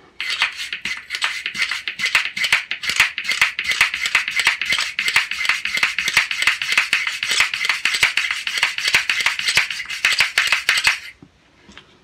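A bore brush scrubbed rapidly back and forth inside a Bond Arms Snake Slayer IV derringer barrel, loosening fouling that is still stuck in the bore. It is a steady run of quick scraping strokes that stops suddenly near the end.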